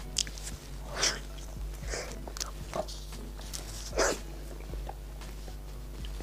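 Close-miked mouth sounds of someone eating a soft, cream-filled matcha snow-skin mochi (xuemeiniang): quiet soft chewing with about six short breathy puffs spread through.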